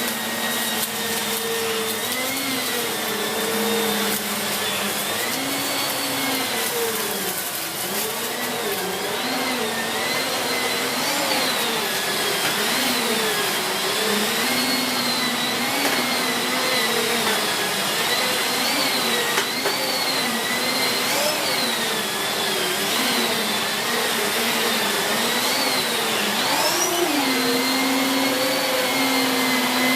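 Siemens Z6.0 Power 2500 W bagged cylinder vacuum cleaner running continuously. Its motor note wavers up and down every second or two as the floorhead is worked back and forth and the airflow load changes, over a steady rush of suction air.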